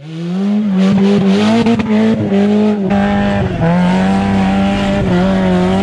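Car engine held at high revs. The pitch stays nearly level, wavers slightly and dips briefly about three seconds in.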